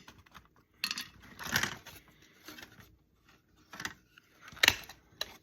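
Small hard electronic parts and a stripped circuit board being handled and dropped onto a sorting pile: a few separate clicks and clinks with light rattling between, the sharpest clink near the end.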